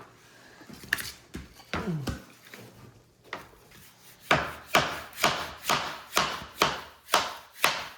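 A hammer striking wood in a steady series of sharp blows, about two a second, starting about four seconds in. Before that come a few scattered knocks and handling sounds.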